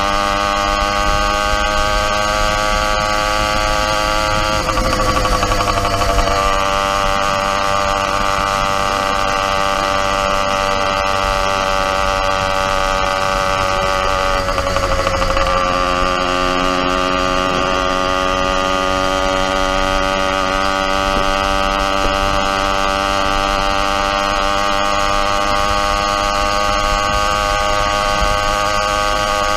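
Motorized bicycle's YD100 engine running steadily at cruising speed. Its pitch dips and comes back up twice, about five seconds in and again about fifteen seconds in.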